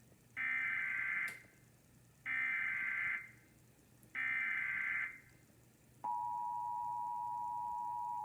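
Emergency Alert System activation: three one-second bursts of the SAME digital header tones, about two seconds apart, then the steady two-tone EAS attention signal starting about six seconds in. The signal heralds a National Weather Service tornado warning.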